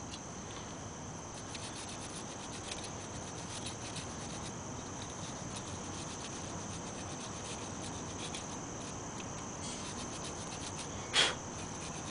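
Hand wire brush scrubbing surface rust off a steel brake pad retaining clip: faint, steady scratching, with one louder sharp sound near the end.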